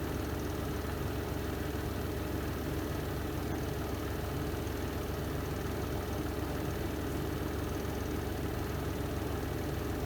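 Renova semi-automatic twin-tub washing machine's spin drum running steadily: an even motor hum with a fast low throb from the spinning drum.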